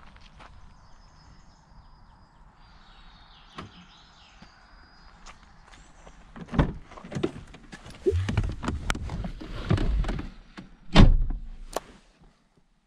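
Škoda Octavia being unlocked and its door opened, with knocks and rustling as someone gets in, then the car door shutting with a loud thunk near the end.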